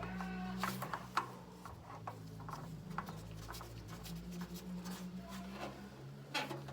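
Light scraping and small clicks of gloved hands turning a spin-on oil filter to thread it onto its mount, over a steady low hum.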